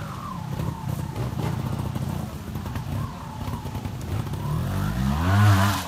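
Two-stroke TRS 300 trial motorcycle engine running at low revs with small throttle blips, then revved up and back down in one louder burst near the end.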